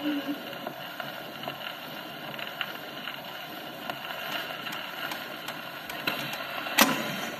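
Acoustic gramophone with an Electrola soundbox playing a 1936 shellac 78 rpm record. The last held note of the singing stops just after the start, leaving the steady hiss and scattered crackles of the needle in the record's final grooves, with one sharp click near the end.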